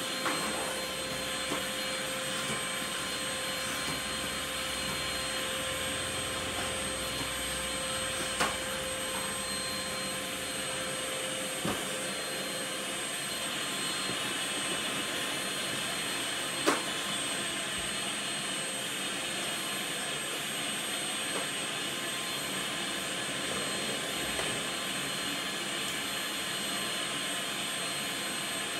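Canister vacuum cleaner running steadily while its nozzle is worked over a foam mattress and the tiled floor, with a few brief knocks, the loudest about two-thirds of the way through.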